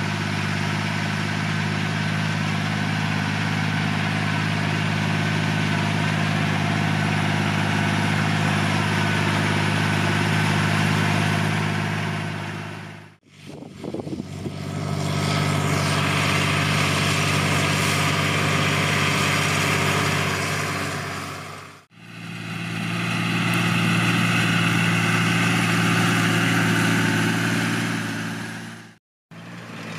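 John Deere 8100 tractor's six-cylinder turbo diesel engine running steadily at working speed, pulling a stubble cultivator. The sound drops out briefly three times, about thirteen, twenty-two and twenty-nine seconds in, and resumes each time.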